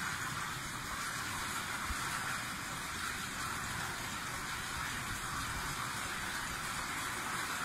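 Steady rush and splash of water in a koi pond, running without a break.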